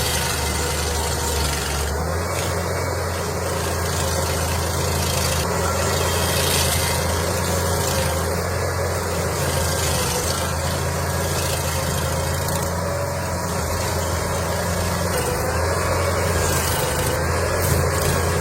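A heavy machine's engine running steadily at a constant speed, a low even drone with mechanical noise above it.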